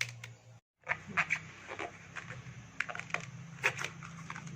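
Scattered crisp snaps and crackles of banana blossom bracts and florets being pulled apart by hand, over a steady low hum. The sound drops out briefly just under a second in.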